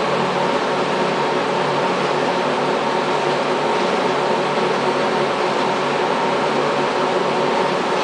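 Monarch Model 24N geared-head engine lathe running under power with the spindle turning: a steady mechanical hum from the headstock gearing and drive, with several steady tones over an even noise.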